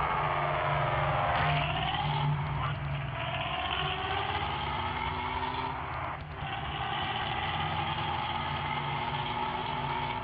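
Bus engine with a growling 'ngorok' exhaust, running under load. Its pitch sinks, then climbs steadily as it pulls through the gears, with a brief break about six seconds in.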